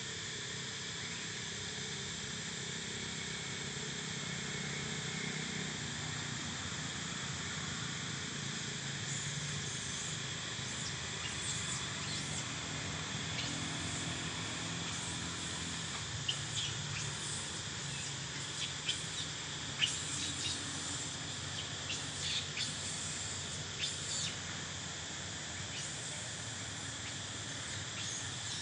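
Steady outdoor insect chirring from the surrounding woodland, with a string of short, high chirps scattered through the middle and second half.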